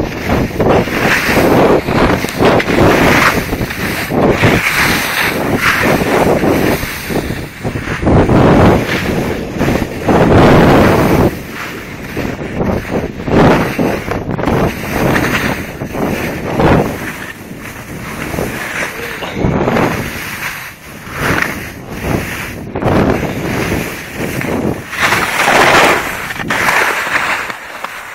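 Wind buffeting a phone's microphone together with snowblades sliding and scraping over snow during a downhill run, a loud rushing noise that rises and falls in surges.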